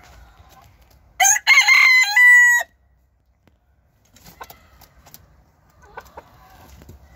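Cochin rooster crowing once: a loud crow about a second and a half long, starting about a second in and ending on a held high note. Faint clucking and scratching from the hens follow near the end.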